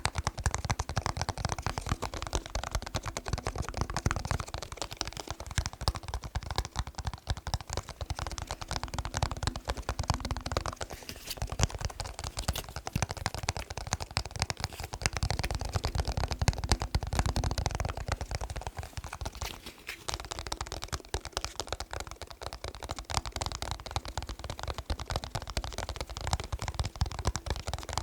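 Fingers tapping rapidly on a plastic TV remote close to the microphone: a dense, unbroken run of small clicks and knocks with a dull low thump under them.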